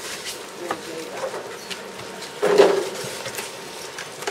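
Assembly-line workroom noise with small clicks and taps of a tablet being handled and fitted, and one louder sound lasting about half a second, around two and a half seconds in.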